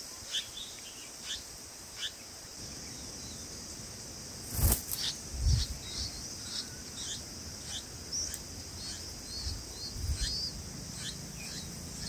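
Steady high-pitched insect drone with short, falling bird chirps about once a second, and a single loud thump about four and a half seconds in.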